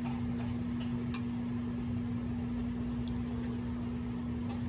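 Microwave oven running: a steady electrical hum with one strong held tone over a low rumble, and a light click about a second in.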